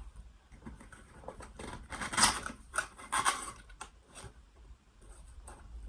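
Packaging being handled as a boxed Funko Pop vinyl figure is unpacked: irregular scraping, rubbing and rustling with a few clicks, loudest about two and three seconds in.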